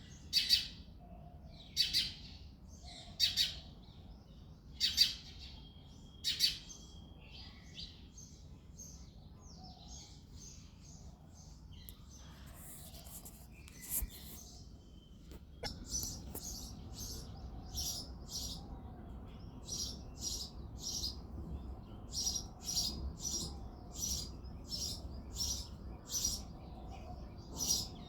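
Male house sparrow chirping: loud single chirps about every second and a half, then a stretch of fainter chirps, and from about halfway a quicker run of chirps, about two a second.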